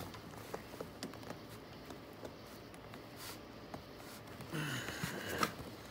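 Hands working a plastic-backed vinyl door panel, with faint scattered clicks and light scratching. About four and a half seconds in there is a louder scrape and rustle, ending in a sharp click.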